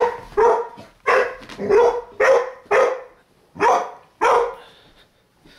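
Large dog barking at a toy ball in play: seven short barks, about one every half second, stopping near the end.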